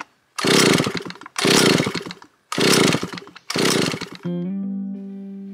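Vintage 1970s Stihl S10 chainsaw engine running in four short, loud bursts of about a second each, each cut off sharply. About four seconds in, guitar music takes over.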